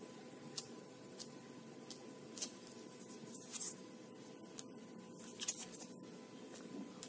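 Faint scraping and soft clicks of a wooden spatula spreading peel-off wax across the skin of the cheek, the clicks coming singly at uneven intervals with a small cluster about halfway through. A faint steady hum sits underneath.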